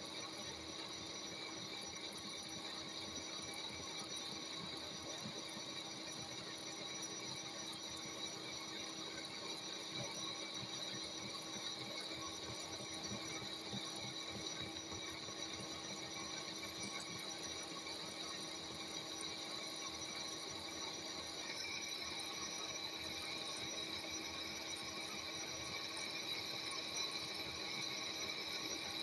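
Lathe turning a cast-iron bush: the machine runs steadily with a constant whine, over a fine scratchy noise of the tool cutting the iron. A second, higher whine joins about two-thirds of the way through.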